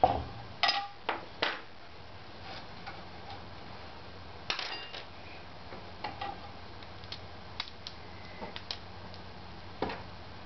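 Clicks and clinks of small hardware being handled on a wooden workbench: a cluster of knocks as the printer bed plate is set down and the Allen key picked up, then scattered single clicks as screws and a corner clip are fitted. A steady low hum runs underneath.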